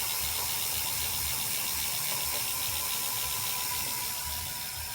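36-volt electric fat bike's hub motor spinning the wheel under throttle: a steady whine with a low pulse repeating about twice a second, easing a little near the end.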